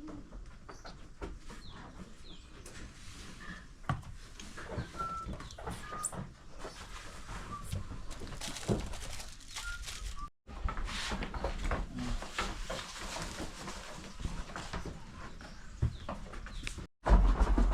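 Farmyard sounds: short, high bird-like calls and clucking over scattered knocks and rustling, broken twice by brief cuts.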